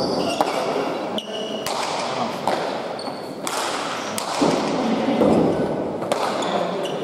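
A pelota rally: a hard ball cracking against the court walls and the players' paddles, a string of sharp separate smacks that ring on in the hall, with short high squeaks between them.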